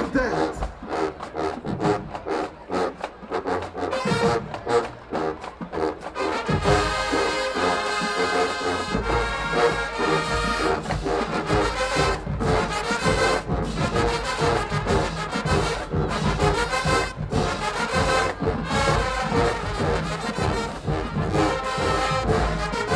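High school marching band playing, brass and drums. The drums carry the first few seconds, and the full brass section comes in loud about six seconds in, with the low brass joining a few seconds later.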